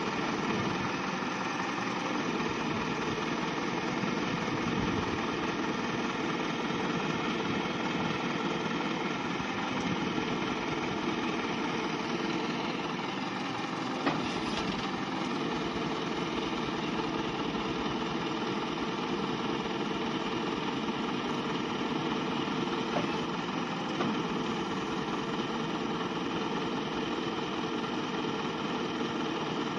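Truck engine idling steadily, with a single short knock about halfway through.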